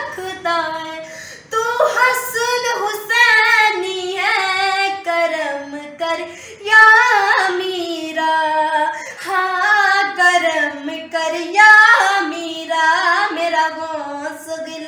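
A woman singing a Punjabi Sufi kalaam unaccompanied, in long phrases whose pitch slides and bends, with short breaks between phrases.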